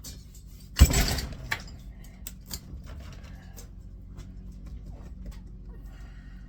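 A sharp metallic clank about a second in, followed by light scattered metal clicks and scrapes from hand tools working on the motor's armature and housing.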